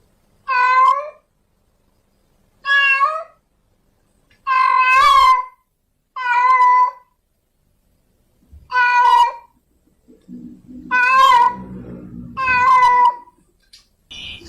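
A female cat in heat meowing over and over, seven loud drawn-out calls a second or two apart, the fourth a little longer than the rest: the calling of a queen seeking a tom. A faint low rumble runs under the last few calls.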